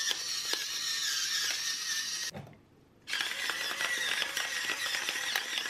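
Twist grinder mill grinding black peppercorns, a steady gritty grinding with fine clicks, which stops about two seconds in; after a short pause a salt mill grinds the same way.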